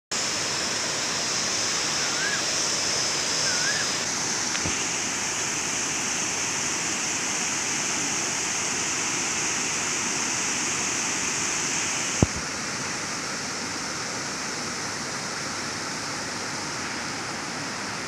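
Water pouring over a weir: a steady rushing noise, with a single sharp click about two-thirds of the way through.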